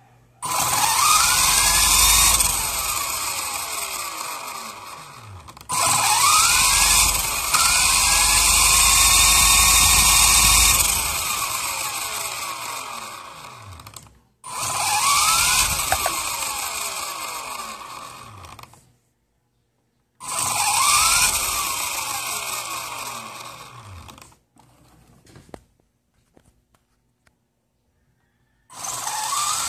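WLtoys V913 RC helicopter's electric motor and main gear spooling up five times, each a rising whine that then winds down in falling pitch. This is the ticking noise the owner asks about, with the main gear wobbling; he suspects the main shaft or the main gear.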